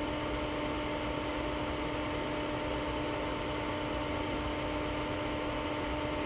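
A steady hum with constant low tones over a noise bed, unchanging throughout, heard in the gap between VHF radio transmissions.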